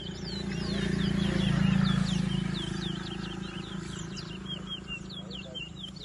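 Caged towa-towa (chestnut-bellied seed finch) songbirds singing against each other in a song race: a fast run of short sweeping chirps, several a second. Under them is a low rumble that swells about one to two seconds in.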